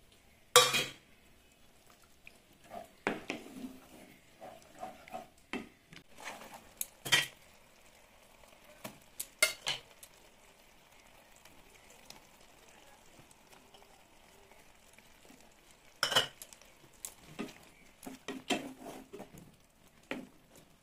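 Wooden spatula stirring thick gravy in a metal non-stick kadai, with irregular knocks and clatters against the pan and quiet stretches between.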